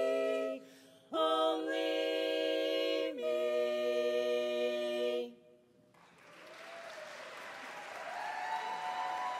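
Women's barbershop quartet singing a cappella in close harmony: a chord breaks off, then a final held chord swells in, shifts once and is cut off cleanly a little past the middle. After a brief silence, audience applause rises and grows louder toward the end.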